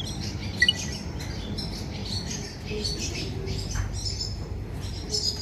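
Small birds chirping repeatedly in short, high calls over a steady low rumble.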